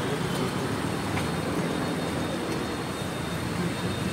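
Steady roadside street noise: traffic running past with indistinct voices of people talking.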